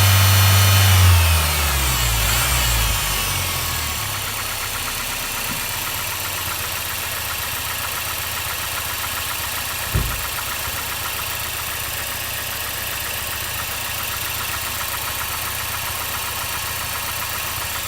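Mazda 6 MPS turbocharged 2.3-litre four-cylinder engine held at raised revs, then dropping back over a few seconds and idling steadily. A single short thump comes about ten seconds in.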